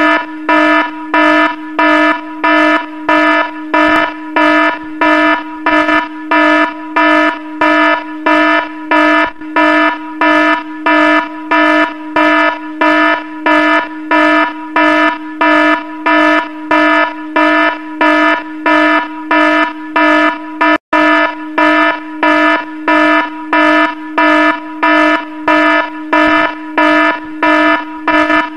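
An electronic alarm beeping loudly in an even, repeating pattern of one buzzy tone, about three beeps every two seconds, with a split-second break about three-quarters of the way through.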